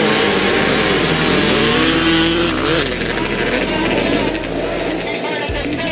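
Several dirt-bike engines revving hard and accelerating away from a standing start on the ice, their pitch climbing as the pack pulls away.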